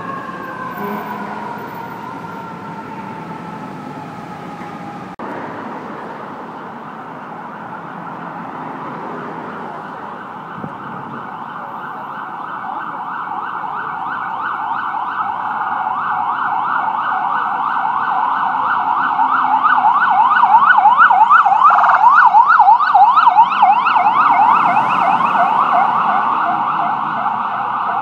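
An emergency vehicle siren winding down in a slow falling wail. After a sudden break, a siren in a fast up-and-down yelp, about three sweeps a second, grows steadily louder as the vehicle approaches, is loudest about three-quarters of the way through, and then eases slightly.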